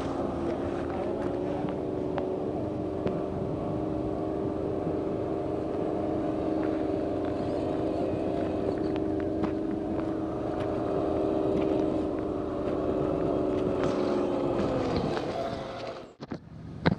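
Electric motor and gearbox of an RC scale trail truck whining at a steady speed, then winding down and stopping near the end, with a few light clicks.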